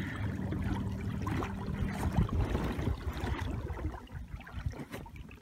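Water splashing and trickling along a kayak's hull, with a steady low hum that stops about two seconds in.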